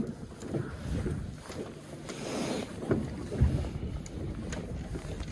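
Wind buffeting the microphone and water slapping against a small boat's hull, with scattered knocks and a heavier thump about three and a half seconds in.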